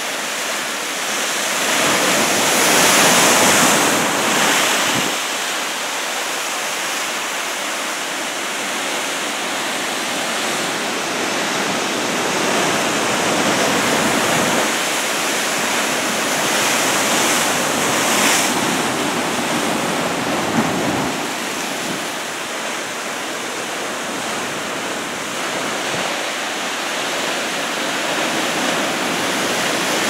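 Heavy typhoon surf breaking along the shore, a continuous rush of whitewater that swells louder about two to four seconds in and again around seventeen seconds, with wind buffeting the microphone.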